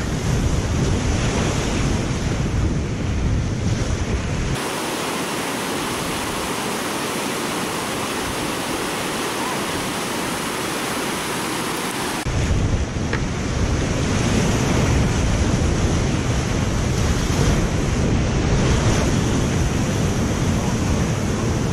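Whitewater rapid rushing loudly around a kayak, with low wind buffeting on the microphone. From about 4.5 s to 12 s the low buffeting drops out, leaving a thinner, steadier rush of the rapid.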